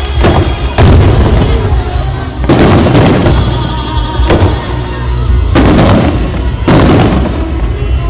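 Aerial fireworks shells bursting in a series of loud booms, one every one to two seconds, each with a crackling tail, over music playing throughout.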